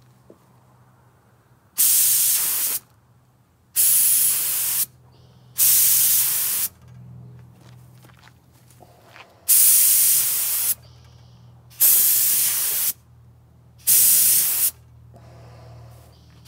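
Compressed-air gravity-feed spray gun spraying clear coat in short passes: six hisses of about a second each, with pauses between.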